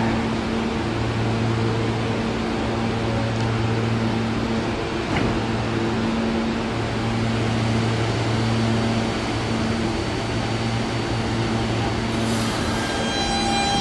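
R160B subway train standing at the platform, its onboard equipment giving a steady hum with low tones that cut in and out, and a single sharp knock about five seconds in. Near the end the train starts to move off, and the propulsion whine of several high tones sets in.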